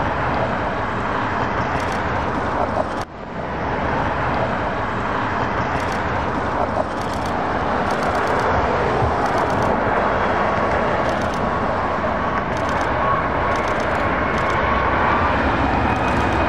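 Boeing 757-200 jet on final approach: a steady jet roar mixed with road traffic noise, dipping briefly about three seconds in. A thin engine whine comes in at about ten seconds, joined by a higher one near the end.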